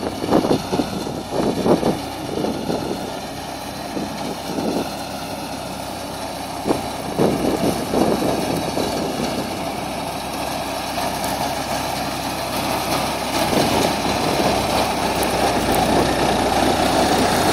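Farm tractor's diesel engine running steadily as it drives a PTO-powered reaper-binder cutting wheat, growing louder as the tractor draws near.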